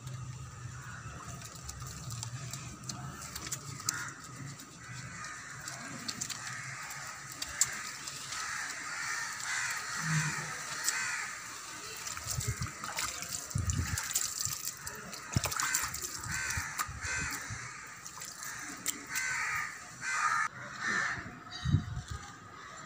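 Hands being lathered with bar soap and rinsed with water poured from a plastic jug, splashing onto concrete. Crows caw repeatedly throughout.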